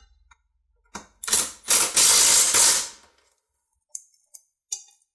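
Cordless driver with a 5/16 socket on an extension running in three short bursts, the last about a second long, tightening the plastic belt guard screws of a push mower. A few light clicks near the end.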